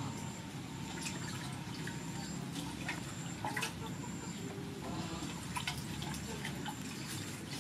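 Water dripping and splashing lightly in a large stainless steel bowl as noodles soaking in cold water are handled by hand, with scattered small drips and clicks.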